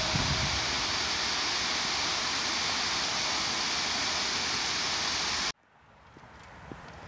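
Steady rush of water pouring over a cascade waterfall, which cuts off abruptly about five and a half seconds in, leaving faint footsteps on a path.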